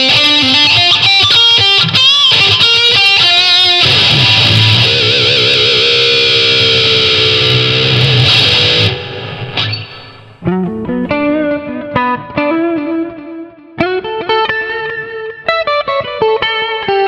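Distorted electric guitar playing a fast lead line that ends in a long held note with wide vibrato, recorded through a condenser microphone in front of a small Marshall combo amp. About nine seconds in it cuts off, and the guitar comes back quieter and with less treble, recorded direct through an effects unit into an audio interface.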